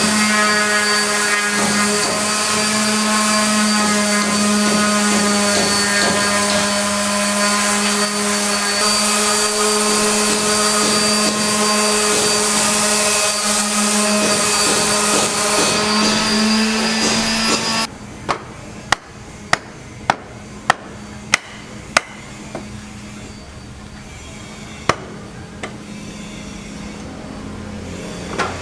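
An electric power tool running steadily with a whining hum and hiss, cutting off abruptly after about 18 seconds. A series of sharp hammer blows follows, about one every two-thirds of a second, then a few more spaced out.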